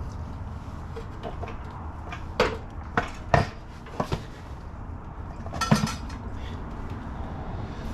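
Metal tools and parts clinking and clanking as they are handled, several separate sharp knocks in the middle and a short ringing clatter near the end.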